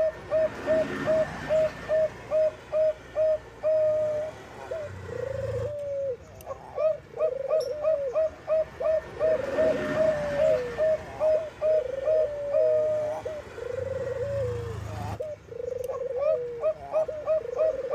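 Zebra doves (Bangkok perkutut) cooing. Runs of short, quick coos, about three or four a second, break into longer notes that slide down in pitch, and the pattern comes round twice.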